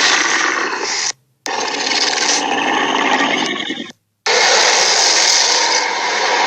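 Synthetic Acrocanthosaurus sound effects: three harsh, raspy dinosaur roars, one short and two longer, each cut off abruptly with a brief silence between them.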